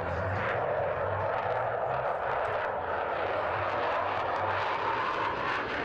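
Jet engine roar of a Thunderbirds F-16 Fighting Falcon flying overhead, steady and loud, rising a little in pitch near the end.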